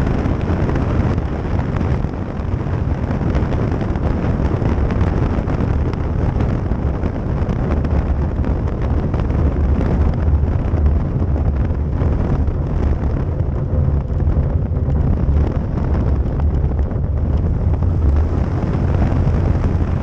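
One Design aerobatic plane's propeller engine running through the landing rollout, with steady, heavy wind and propwash buffeting rumbling on the cowl-mounted camera's microphone.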